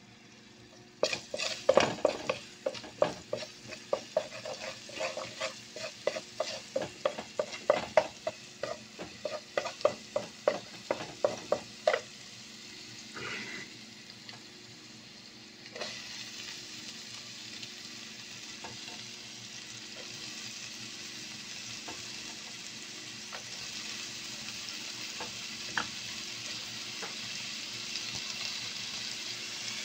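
Garlic frying in oil in a pan, stirred with a wooden spatula that knocks and scrapes against the pan about two or three times a second for the first twelve seconds or so. After that comes a steady frying sizzle that grows louder near the end, with chopped onion now in the pan.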